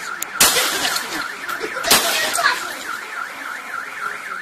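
Car alarm sounding with a fast warbling sweep, about four a second. Two loud bangs cut across it, about half a second in and again about two seconds in.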